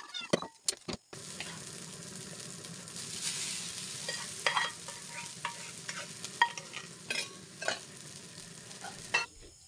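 Egg and rice frying in a metal wok on a gas burner: a steady sizzle from about a second in, with sharp scrapes and clinks of a metal spatula against the pan. The sizzle swells around the point where cooked rice is tipped into the wok.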